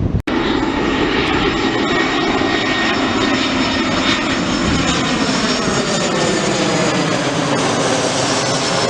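Airliner engines flying low overhead on approach to land, a loud, steady rush whose tone slowly sweeps down and back up as the plane passes. The sound cuts out for a moment just after the start.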